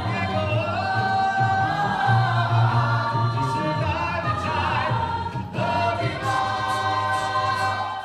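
A choir of men and women singing together in harmony, holding long chords, with a short break for breath about five and a half seconds in.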